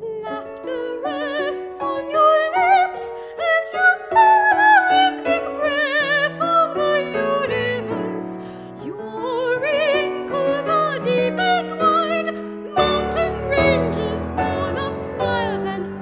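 Soprano singing with vibrato over piano accompaniment, in a contemporary art song. About three-quarters of the way through, deeper and fuller piano chords come in beneath the voice.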